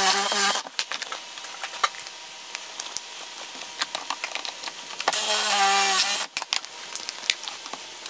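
Cordless drill spinning a Forstner bit through a Kreg concealed-hinge jig, boring hinge-cup pockets in plywood. The drill runs under load until just after the start, then clicks and knocks as the jig is shifted, and a second burst of drilling comes about five to six seconds in.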